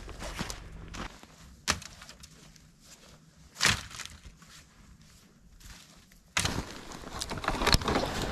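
Footsteps crunching in snow, with two sharp knocks about one and a half and three and a half seconds in. From about six seconds in, louder, quicker crunching steps in snow as dead branches are carried.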